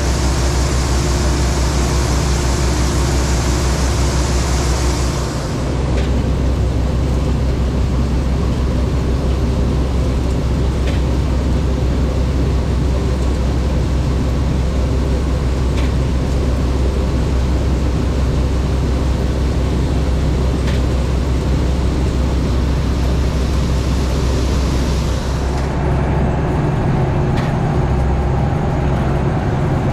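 Case IH 2388 combine harvester running steadily while harvesting corn, its diesel engine drone underlying the machinery noise. A high hiss drops away about five seconds in, and the engine note changes near the end.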